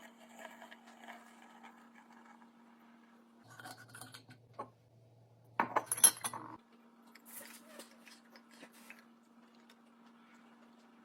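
Hard household items being handled and set down, with light clinks and clatters. The loudest run of clinks comes a little past the middle, over a faint steady hum.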